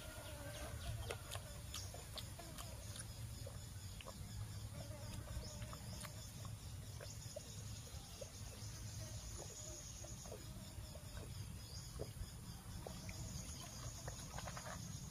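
Faint outdoor ambience: chickens clucking in the distance, a thin high insect buzz through the middle, and a low rumble underneath.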